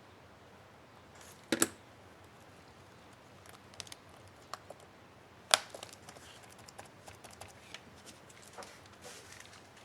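Small plastic clicks and taps of a laptop keycap being handled and snapped onto an HP ENVY 15 keyboard. The sharpest snaps come about a second and a half in and again at about five and a half seconds, with lighter ticks between.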